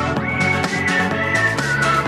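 Electronic dance music with a steady, fast beat and a synth melody.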